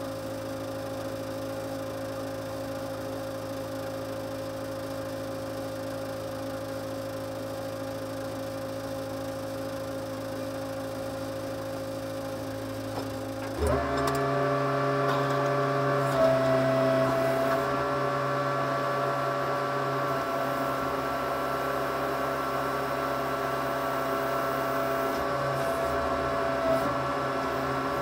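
Case 580C backhoe's engine running steadily at idle, then stepping up to a higher, louder speed about halfway through as the backhoe arm is worked, and holding that speed.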